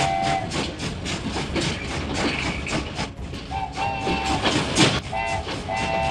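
Train sound effect: wheels clattering over rail joints in a quick, even rhythm, about four clacks a second, with a multi-tone train horn. The horn blast ends about half a second in, sounds again for about half a second after the middle, and gives two short toots near the end.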